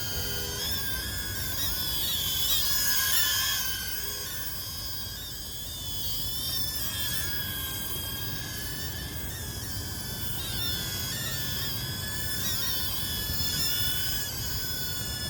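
Mini quadcopter drone's tiny propeller motors whining, the pitch wavering up and down as the throttle changes while it is steered against the wind. Wind rumbles on the microphone underneath.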